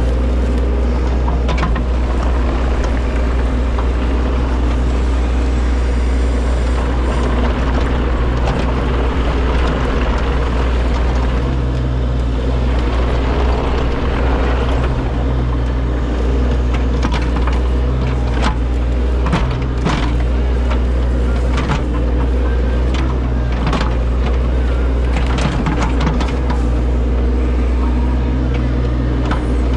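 Excavator engine running steadily under work, with scattered knocks and clunks, most of them in the second half.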